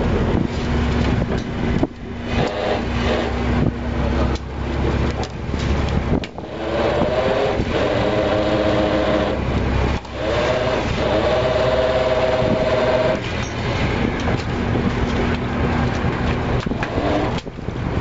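Fishing boat's engine running steadily. A pitched machine whine comes in twice in the middle, and a low steady hum sounds at the start and again near the end.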